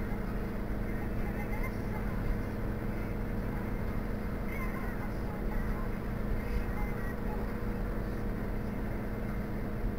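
Car engine and road noise heard from inside a moving car: a steady low hum with no sudden changes.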